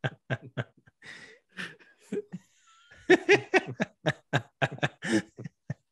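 Several men laughing in quick, short pulses, softer at first and then louder from about halfway through.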